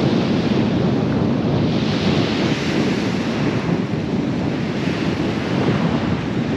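Wind buffeting the microphone over surf breaking on a steep shingle beach, a steady low rumble with a hiss that swells about two seconds in as a wave washes up the stones.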